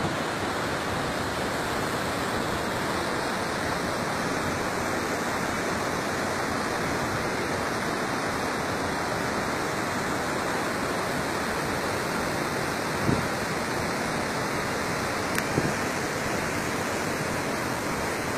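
Waterfall and river rapids pouring over rocks: a steady rush of white water, even throughout. Two brief low bumps come about two-thirds of the way in.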